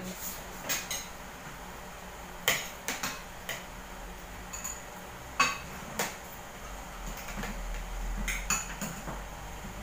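Spoons and forks clinking against plates as people eat, in irregular short, sharp clinks.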